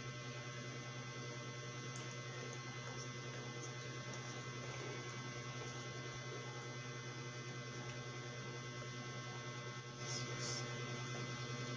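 Steady low electrical hum with a faint buzz of fine steady tones above it, slightly louder from about ten seconds in.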